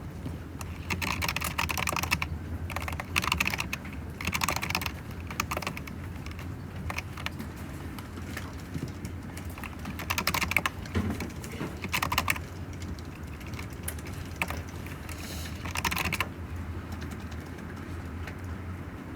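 Typing on a computer keyboard in several short bursts of rapid key clicks, with pauses between, over a steady low hum.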